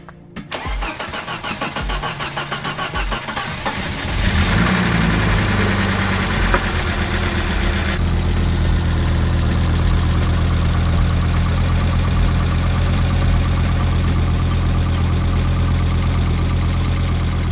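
Car engine cranking on the starter for about four seconds, then catching and running at a fast idle that settles to a steady idle around eight seconds in. This is the first start of a freshly installed replacement turbocharged engine.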